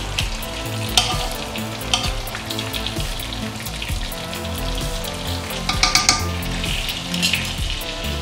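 Food sizzling steadily as it fries in hot oil, with scattered clicks and light knocks of kitchenware, the loudest clicks about six seconds in.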